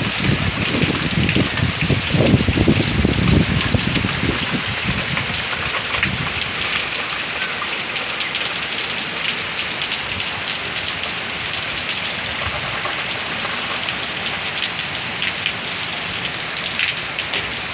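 Heavy rain falling steadily on pavement and grass: a dense, even hiss with many fine drop ticks. A louder, irregular low rumble comes and goes during the first four seconds.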